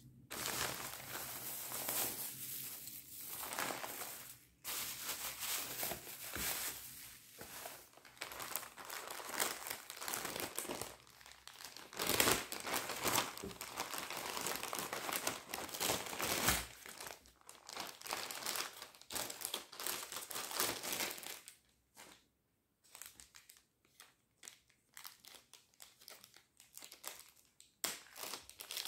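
Plastic packaging crinkling as hands open and handle it: bubble wrap and a clear plastic bag. The crinkling is continuous for about twenty seconds, with its loudest crackles around the middle, then gives way to scattered soft clicks and rustles as small items are set down.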